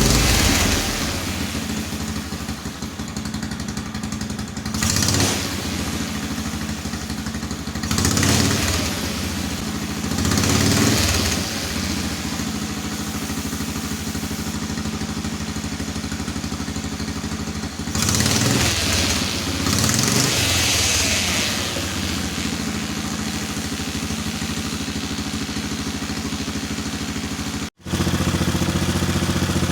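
Lawnmower engine of a homemade motorcycle running steadily, with several brief louder surges. The sound cuts out for an instant near the end and comes back.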